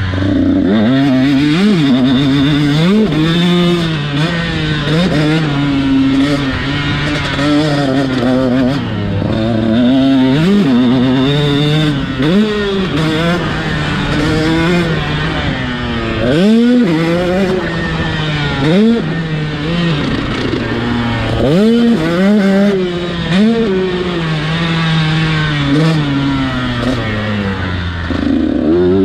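Two-stroke engine of a KTM SX 125 motocross bike revving up and falling back over and over, with quick rising sweeps in pitch as the throttle opens and closes around the track.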